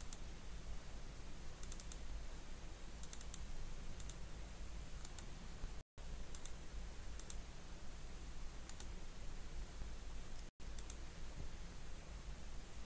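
Computer mouse clicking: a handful of single and double clicks, faint over a steady low hum, with the sound cutting out briefly twice.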